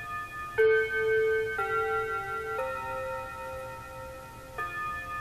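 Seth Thomas wall clock playing its quarter-hour chime melody: ringing chime notes about one a second in four-note phrases. The last note of each phrase is held longer, and a new phrase begins near the end. The clock's chime is sounding at about 7:37 rather than on the quarter hour, its intermittent timing fault.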